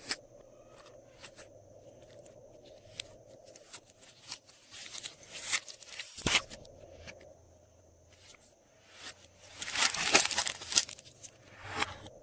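Slime being worked in plastic piping bags: plastic crinkling and rustling with scattered clicks, a longer burst about five seconds in, a sharp snap a little after six seconds, and a louder stretch of crinkling around ten seconds in.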